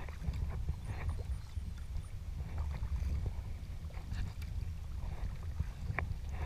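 Paddling a Prijon Seayak 500 LV sea kayak: water splashing and sloshing around the paddle and hull in short irregular dashes, over a steady low rumble.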